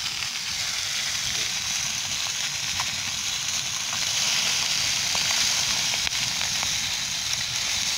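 Curimba fish steaks frying in a little lard in a wide pan over an open wood fire: a steady sizzle that grows a little louder about halfway through, with a few faint crackles.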